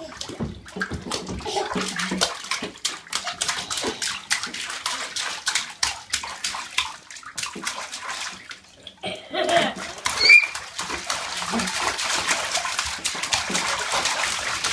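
A toddler slapping and splashing bathwater in a tub with his hands: quick repeated splashes that turn into dense, continuous splashing for the last few seconds. The child's voice is heard briefly, with a short high squeal, about ten seconds in.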